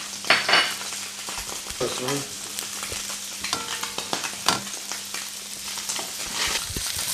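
Sliced white onion sizzling in hot olive oil in a stainless steel wok, with many small crackles and pops throughout.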